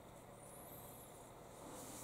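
Near silence: faint room hiss, with a faint high-pitched whine that rises and falls about half a second in, and a soft rustle near the end.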